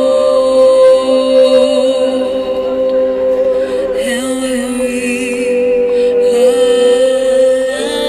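Woman singing one long held note through a small PA speaker, over an electric bass guitar that moves to a new note about halfway through.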